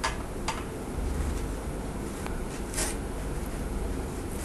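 A few faint clicks and scrapes of a screwdriver working small screws out of a steel backplate over a low steady hum.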